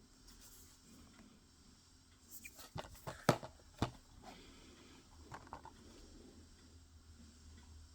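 Blu-ray cases being handled: a short cluster of light plastic clicks and knocks a little before the middle, the sharpest one in the middle of it, then a couple of faint taps.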